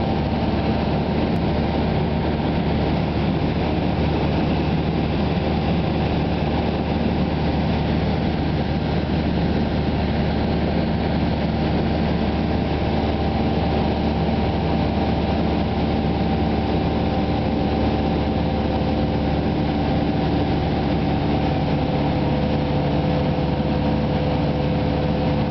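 Light high-wing aircraft's engine and propeller running steadily in flight, heard from inside the cabin as an even drone with several steady tones over a rushing hum.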